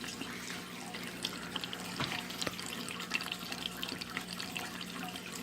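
Aquarium filter water splashing and trickling into a fish tank, with many small irregular drips over a steady low hum.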